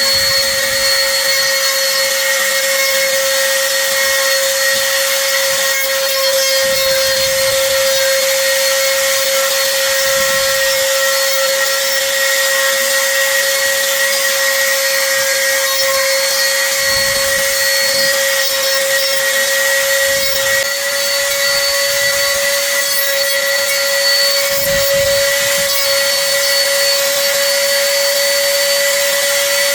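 Electric wood router running at a steady high speed, with a constant high motor whine over the hiss of the bit cutting wood.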